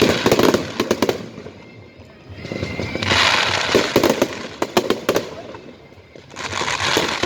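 Electronic fireworks playing firework sounds. A swelling hiss builds into a burst of crackling pops that fades away, and the cycle repeats about every three and a half seconds.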